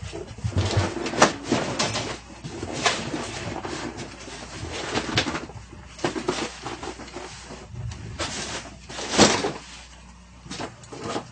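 Objects being moved about and knocked together while someone rummages through a pile of stuff in a small room, with scrapes and irregular sharp knocks, the loudest about nine seconds in.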